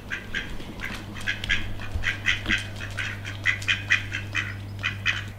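Birds calling in a rapid run of short, repeated calls, several a second, over a steady low hum.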